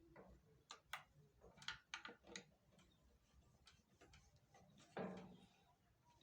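Faint, irregular small clicks and taps of wire and terminal hardware being handled while a wire is fitted to a magnetic contactor, with one short, louder sound about five seconds in.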